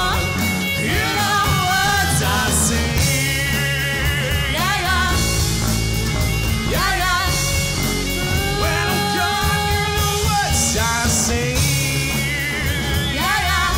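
Rock band playing: violin bowed over acoustic guitar, bass and drums, with a male voice singing.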